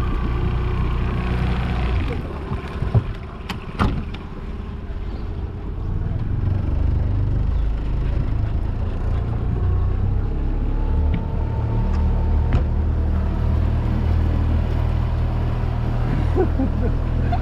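Outboard motor running steadily as the small boat moves off. Its sound drops for a few seconds about two seconds in, with a couple of sharp knocks, then picks up again and stays steady.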